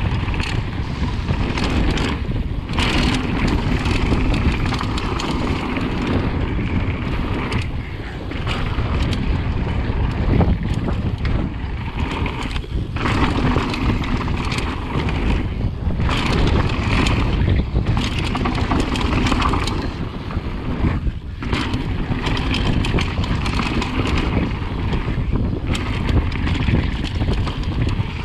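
Wind rushing over the camera microphone, with the mountain bike's tyres rumbling over a dirt singletrack on a fast downhill run. The noise is loud and continuous, dropping briefly a few times.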